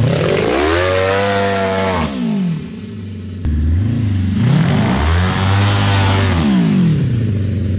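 Honda CBR1000RR inline-four motorcycle engine in an off-road buggy, revving up and back down twice in first gear as the buggy pulls away. Each time the pitch climbs, then falls as the throttle comes off, with a quieter, lower stretch in between.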